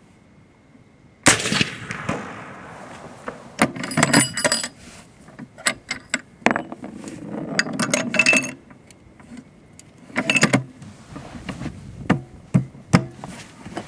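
A suppressed Anzio 20 mm anti-materiel rifle fires a single full-power military high-velocity round about a second in: one sharp, loud report with a ringing tail. Then a run of metallic clicks and clinks as the rifle's action is worked.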